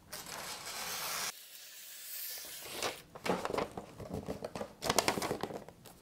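Scissors sliding through gift wrapping paper in one long hissing cut lasting about a second. From about three seconds in, the paper crinkles and rustles with sharp crackles as it is handled and folded around a cardboard tissue box.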